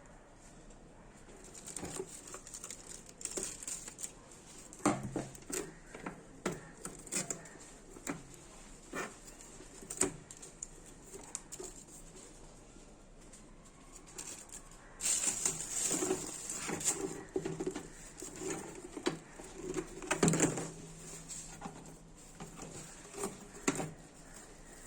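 Scattered light knocks, clicks and rustling of packaging and small plastic parts being handled, with a busier stretch of rustling and clatter past the middle.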